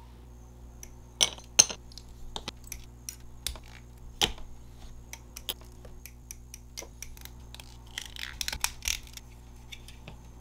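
Hard plastic Gunpla model-kit parts and parts runner clicking and clacking as they are handled, pressed together and set down on the work mat, in irregular sharp taps, the loudest pair about a second in, with a busier stretch of clicks and rustling near the end. A steady low hum runs underneath.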